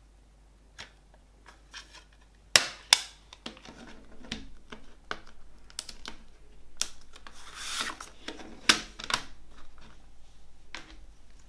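Plastic CD jewel case being opened and handled: sharp plastic clicks and snaps, the two loudest close together about two and a half seconds in, more near the end, with plastic rubbing and rustling between them.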